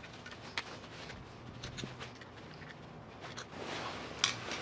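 Phillips screwdriver backing small screws out of a pit bike engine's clutch-adjustment cover: faint scraping and handling noise with a few light, sharp clicks.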